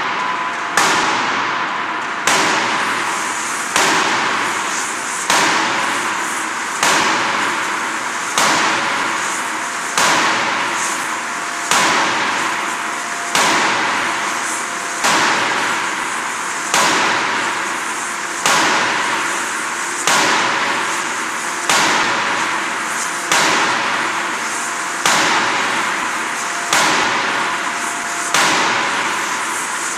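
A 16-ton hydraulic drop forging hammer strikes a red-hot workpiece in a steady rhythm, one heavy blow about every second and a half, each bang ringing out before the next. A steady hum runs beneath the blows.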